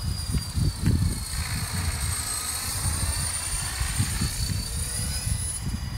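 Electric 450-size Align RC helicopter flying overhead: a steady high-pitched motor and rotor whine that sags slightly in pitch and then climbs again near the end. A rotor swish swells in the middle as it passes closer. Irregular wind rumble on the microphone sits underneath.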